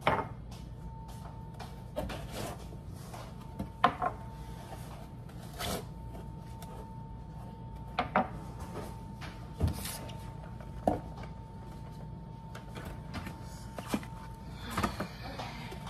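Scattered knocks and clicks of kitchenware and packaging being handled on a kitchen counter, about a dozen separate taps, with a faint steady high tone underneath.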